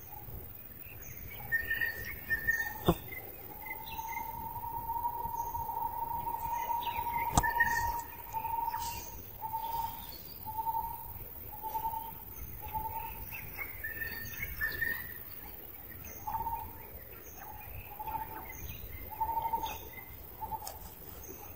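Birds calling outdoors: a long held whistle-like note, then a steady series of short evenly spaced notes at the same pitch, with high chirps repeating over it. Two sharp knocks stand out, one about three seconds in and one past seven seconds.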